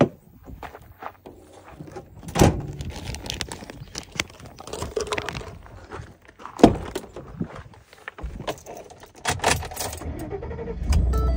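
Movement and handling noises as a person climbs out of a pickup bed and gets into the cab: rustling, jangling keys, and a couple of sharp knocks. Near the end a low steady rumble starts.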